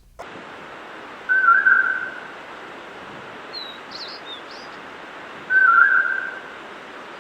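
Animal calls: two loud whistled calls about four seconds apart, each a flat tone lasting under a second, over a steady hiss, with a few faint high chirps between them.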